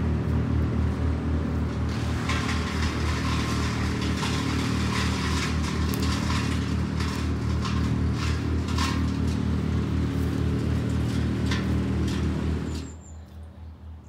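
Large borrowed wood chipper running steadily, its engine drone overlaid with frequent sharp cracks and clatter as orchard prunings are chipped. The sound cuts off suddenly near the end.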